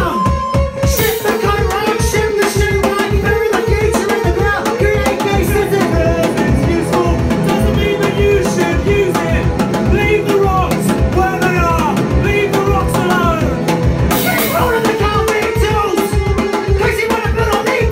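Live punk-indie band playing a song: a drum kit keeping a steady beat under electric guitar, with a singer's vocal over the top.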